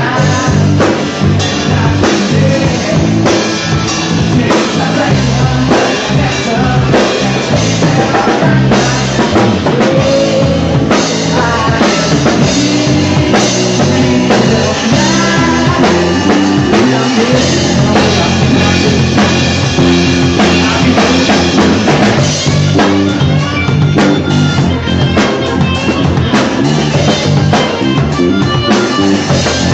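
Live rock band playing a song, with drum kit and electric guitar, loud and continuous, heard from among the audience.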